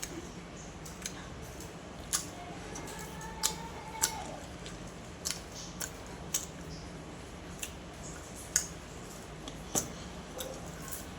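Person eating: irregular sharp, wet clicks and smacks of chewing, about one a second, over a faint steady hum.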